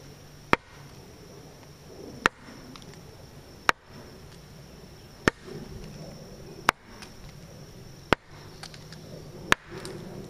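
Tree knocks: a piece of wood banged against a tree trunk, seven sharp, loud knocks about every second and a half.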